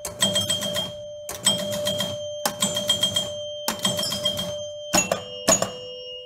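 Gottlieb Card Whiz electromechanical pinball machine scoring as its playfield switches are pressed by hand. About once a second a chime rings and the relays and score reels clatter in a quick run of clicks, with two hits close together near the end, where the ringing drops to a lower chime.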